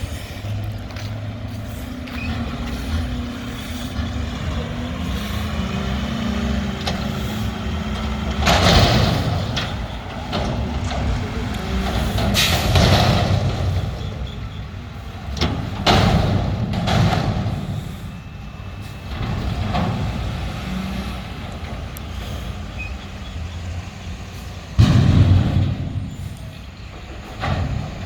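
Mack front-loader garbage truck with a McNeilus body at work: the diesel engine runs with its pitch shifting, broken by four loud, noisy bursts spread through, the loudest near the end.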